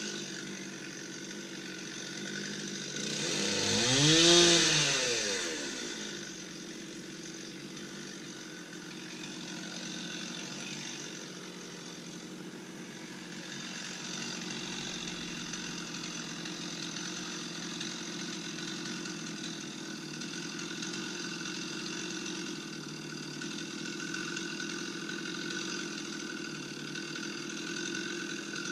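Two-stroke chainsaw idling steadily, revved up once and let back down about four seconds in.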